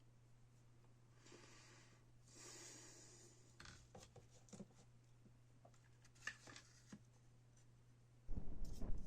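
Faint rubbing and scraping, then a few light clicks and taps, as of small wooden sticks being handled and cut with a craft knife. Near the end a much louder, rough noise starts suddenly.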